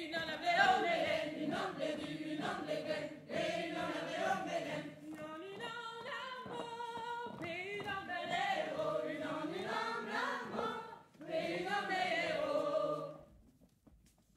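A choir singing unaccompanied, several voices together, with a few held notes partway through; the singing stops about a second before the end.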